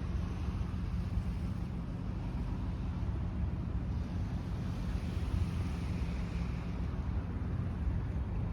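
Seaside ambience: a steady low rumble of wind on the microphone, with a low hum and a faint wash of surf.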